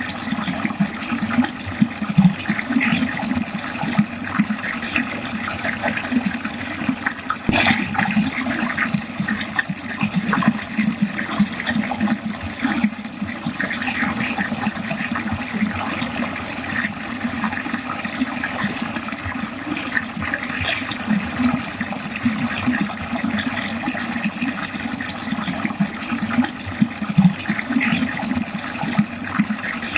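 Water running steadily down a drain, a continuous churning flow with one brief sharper sound about seven and a half seconds in.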